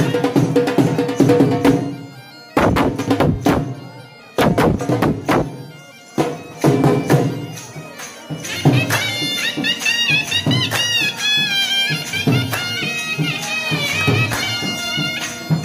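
Traditional folk music for jhumar dancing: drum beats with a reedy wind instrument, its ornamented, wavering melody coming in strongly about nine seconds in. The music drops away briefly a few times in the first six seconds.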